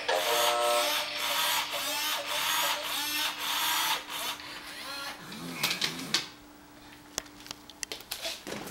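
Animatronic plush triceratops ride-on toy (Playskool's Kota) whirring as its motors move, with a faint steady hum. The whirring drops away about six seconds in, leaving a few faint clicks.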